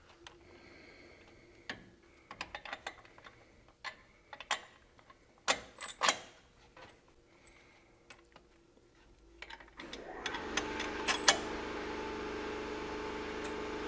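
Clinks and knocks of steel suspension parts as a QA1 torque arm's rod ends are swiveled and lined up on a truck's rear axle. From about ten seconds in, a steady mechanical hum takes over.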